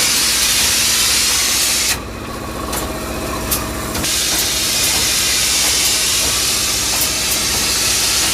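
Polyurea spray gun hissing steadily as the coating is sprayed, over a low machine hum. The hiss drops off for about two seconds shortly after the start, then comes back.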